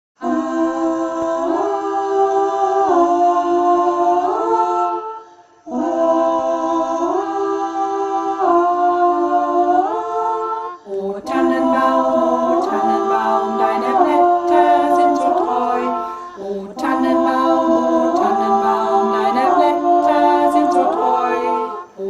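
Women's choir singing a cappella in close harmony: held chords that move in steps, with no clear words. There is a short break about five seconds in, and the sound grows fuller and brighter about halfway through.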